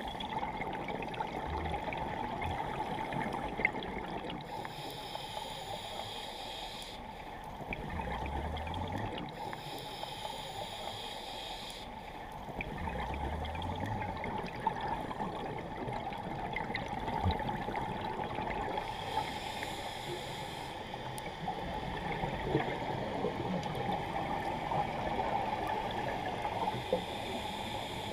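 Underwater sound of a scuba diver breathing through a regulator: a hiss on each inhale and a low burble of exhaled bubbles, about three breaths, over a constant crackling underwater background.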